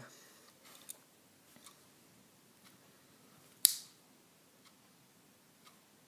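Swiss Army knife being handled: a few faint clicks, then one sharp metallic snap about three and a half seconds in as a tool springs into place.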